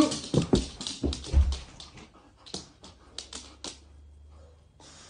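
Plastic cling film crackling and tearing as a dog bursts through it, with a few low thumps in the first second and a half, then scattered crinkles about a second later.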